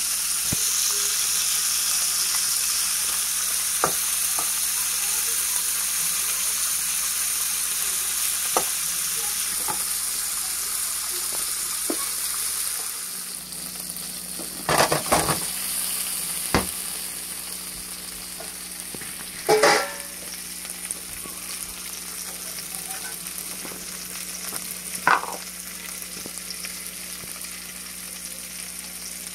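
Prawns sizzling as they fry in oil in a pan, with a spatula scraping and knocking against the pan now and then. The sizzle grows quieter about halfway through, and the loudest knocks come in a few clusters around the middle.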